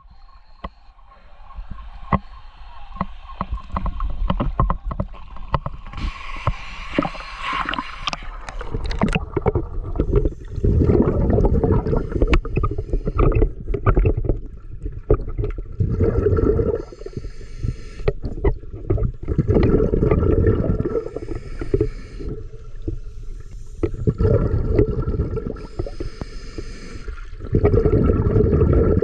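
Surface water lapping and splashing, then underwater the bubbling of scuba divers' exhaled breath from their regulators, coming in bursts every few seconds.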